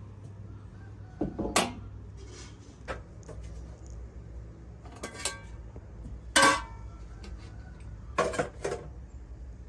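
Dishes and metal utensils clinking: a handful of separate sharp clinks with a brief ring, the loudest a little past the middle, over a steady low hum.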